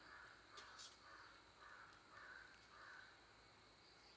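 Faint crow cawing, a run of hoarse caws about two a second that stops about three seconds in.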